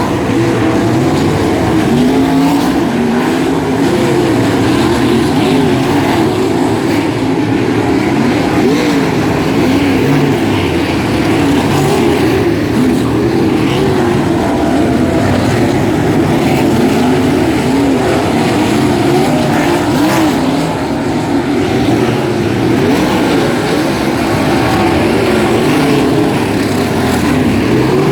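Several 360 sprint cars' V8 engines racing together, loud and continuous, their pitches rising and falling as they accelerate and back off around the track.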